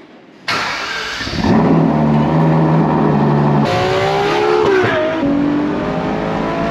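Ferrari supercar engines in quick cuts: an engine starting suddenly about half a second in and running at a steady pitch, then from about four seconds in an engine accelerating hard, its pitch rising, dipping briefly at an upshift and rising again.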